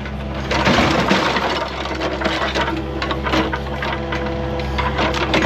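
Excavator engine running steadily under load, with dense irregular crunching and creaking of metal as the machine works to pull the engine out of a car.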